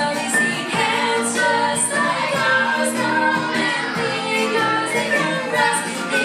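A live band playing an upbeat song with bass guitar, electric guitar and keyboard over a steady beat, with voices singing.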